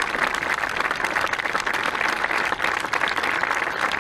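Audience applauding steadily, many hands clapping together in a continuous patter.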